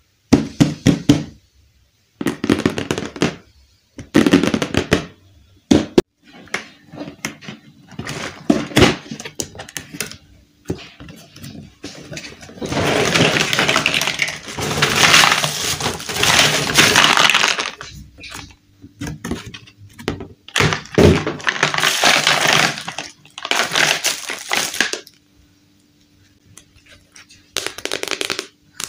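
Cardboard box parts and plastic toy-house pieces being unpacked by hand. First come short scrapes and knocks of pieces being set down, then two longer stretches of cardboard rubbing and rustling in the middle, and a few more clacks near the end.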